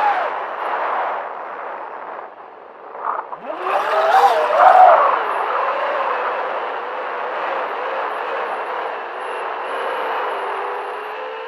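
FPV racing quadcopter's brushless motors and propellers whining, heard from the onboard camera. The pitch falls away about two seconds in as the throttle is cut for a dive, then sweeps sharply up as the throttle is punched, with a brief rush of noise, before settling into a steadier whine as it flies low.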